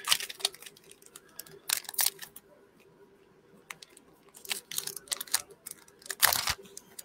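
Foil trading-card booster pack being crinkled and torn open by hand: short bursts of crackling crinkle, in several clusters, loudest near the end.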